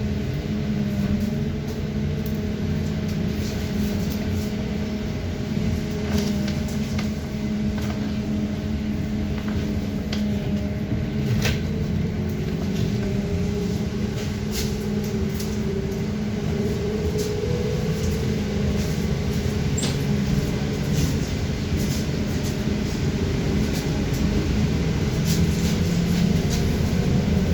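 Cabin of a moving BKM 321 trolleybus: a steady low hum from the electric traction drive, with tones whose pitch slides as the vehicle speeds up and slows. Scattered clicks and rattles from the body run through it.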